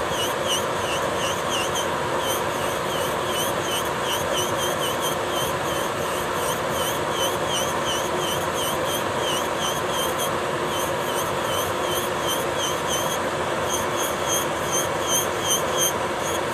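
Electric nail drill (e-file) spinning a Horico power-off bit at 12,000 rpm, grinding gel polish off a fingernail to thin the thick gel layer. Its high whine dips in pitch and recovers about three times a second as the bit is pressed and swept across the nail.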